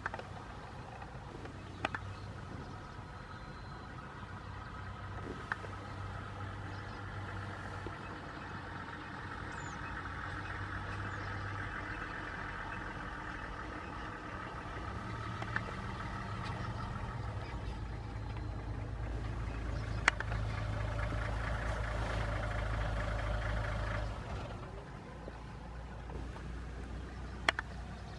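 A vehicle engine idling steadily, louder for a stretch around two-thirds of the way in, with a few sharp clicks now and then.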